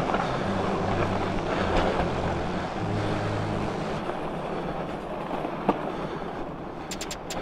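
Fat bike riding on a groomed snow trail: a steady rolling rumble from its wide studded tyres and drivetrain. A sharp click comes about two-thirds of the way in, and a few quick clicks come near the end.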